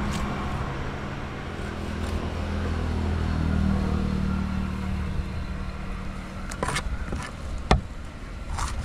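A motor vehicle engine running steadily, swelling in the middle and then fading. Near the end come several sharp knife strikes on a wooden chopping block, one much louder than the rest.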